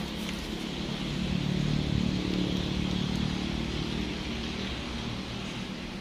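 Motor vehicle engine passing on the road, swelling to its loudest about two seconds in and then easing off, over a steady hiss.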